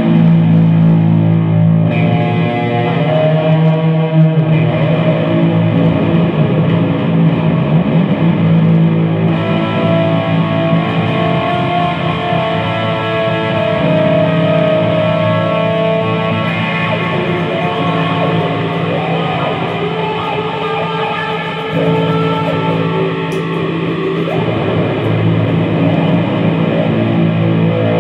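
Background music led by a guitar with effects and distortion: held notes over a steady low note.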